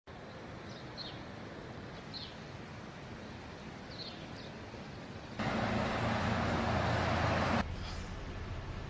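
Outdoor ambience: a steady background rumble with a few faint, short, high bird chirps. About halfway through, a louder rushing noise with a low hum starts suddenly and cuts off about two seconds later.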